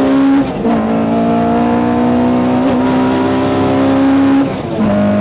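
Toyota AE86's engine at racing revs, heard from inside the cabin. The pitch drops at a gear change about half a second in and again near the end, and climbs slowly in between.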